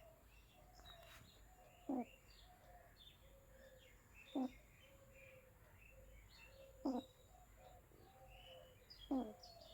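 Whistling snore: a short, high squeak falling in pitch, repeating about every two and a half seconds with the sleeper's breathing. Birds chirp and coo faintly behind it.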